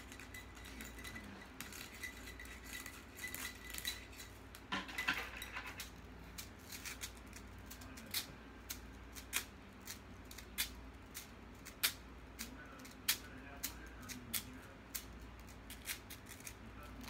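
Plastic rainbow Slinky's coils clacking together as it pours from one hand to the other: a string of sharp, light clicks at uneven intervals, bunched in the first half and then about one or two a second.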